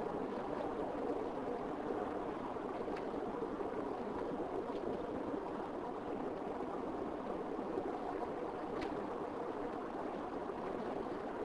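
Car driving along a road: a steady rumble of engine and tyre noise, with a couple of faint ticks.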